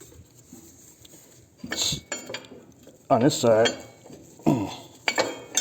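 Metal tools and motorcycle parts clinking and clattering in a few short knocks, with a brief mumbled voice in the middle.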